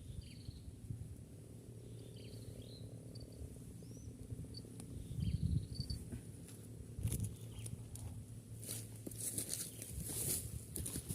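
A small bird chirping: short, high, quickly falling notes, about a dozen in the first six seconds, over a steady high insect hum. Rustling and handling noise near the end.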